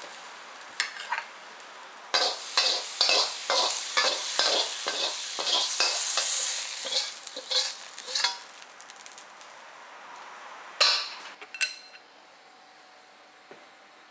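Metal spatula stirring and scraping stir-fried bean sprouts around a wok over a faint sizzle, in a quick run of scrapes and knocks about two to three a second. Later come two sharp clanks, the second with a brief metallic ring.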